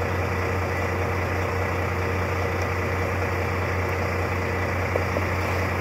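Volvo VNL semi truck's diesel engine idling steadily, a low even hum heard inside the cab. A faint click about five seconds in as wire strippers bite on the ignition wire.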